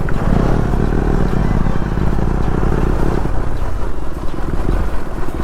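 KTM Duke 250 motorcycle being ridden, its single-cylinder engine running steadily under way along with road noise.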